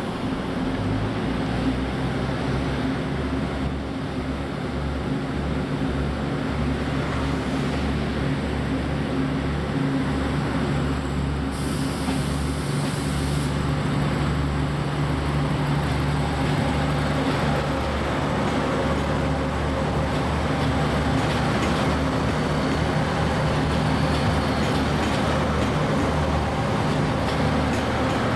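Diesel railcar engine running steadily with a deep hum. A brief hiss comes about twelve seconds in.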